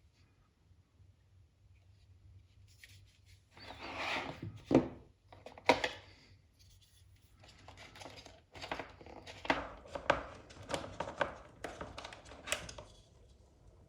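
Packaging being handled and opened: rustling and scraping with sharp knocks, the two loudest about five and six seconds in, then a run of irregular taps and rustles.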